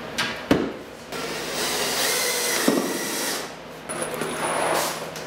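Power drill driving screws into the table panels in two runs, the first about two seconds long and the second about a second, after a couple of sharp knocks near the start.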